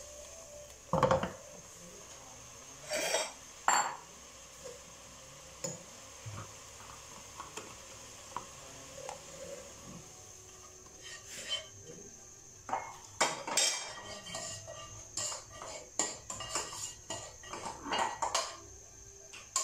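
A spatula scrapes and clinks against a cooking pan, with knocks of the pan, as boiled, softened onion is emptied out into a bowl. The clicks and knocks are scattered and come more often in the second half.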